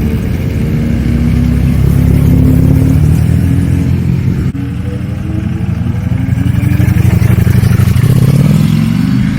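Motorcycle engine running and revving. Its pitch climbs slowly, breaks off abruptly about four and a half seconds in, then rises again near the end.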